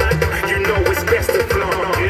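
Hip hop song with rapped vocals over a heavy bass line, played back through a large Bluetooth party speaker at half volume.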